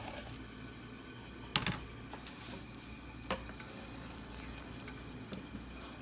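Food being stirred in a pot: soft squishing, with two knocks of the utensil against the pot, about a second and a half in and again after three seconds, over a faint steady background.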